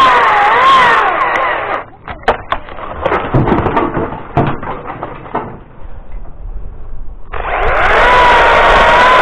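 Two-stroke engine chainsaw running at high revs, its pitch wavering up and down as it cuts, then stopping about two seconds in. A spell of scattered knocks and clatter follows, then the saw revs up again near the end and holds at speed.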